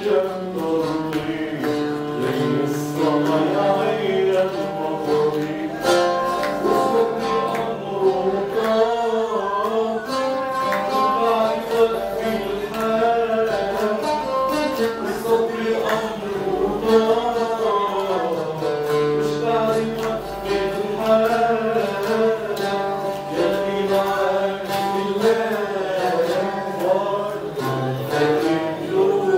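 A man singing while accompanying himself on guitar, the strings plucked and strummed under a continuous vocal melody.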